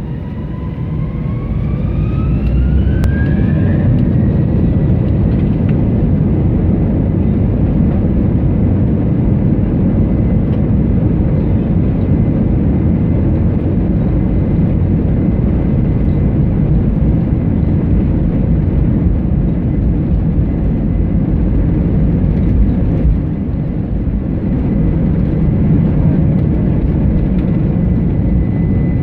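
Airbus A321 jet engines heard from inside the cabin, spooling up with a whine that rises in pitch for the first four seconds or so. They then run steadily at high power, a constant high tone over a loud rumble.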